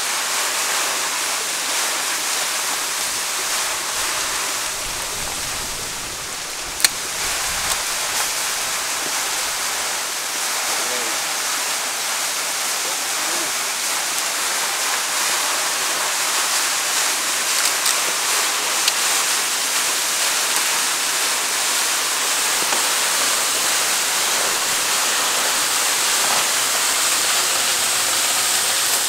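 Waterfall: a steady rush of falling water, with a single sharp click about seven seconds in.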